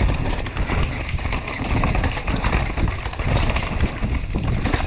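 A downhill mountain bike running fast down a rough dirt trail: constant rumble and clatter from tyres over roots and ruts and the bike rattling, with wind buffeting the on-board microphone.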